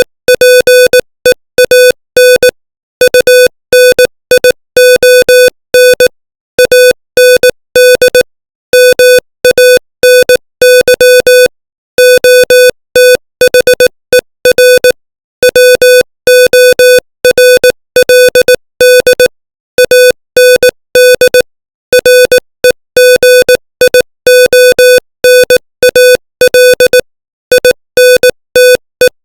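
Morse code sent as a keyed electronic tone at 18 words per minute: short and long beeps of one steady pitch grouped into letters, with longer silent gaps between words.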